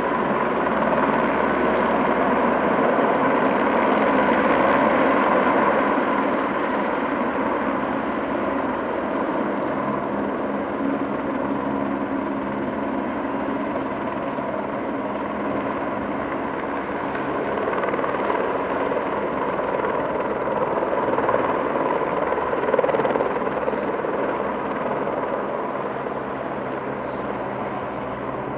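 Helicopter coming in to land, a steady engine and rotor drone with several held pitched hums, loudest around five seconds in and easing a little after.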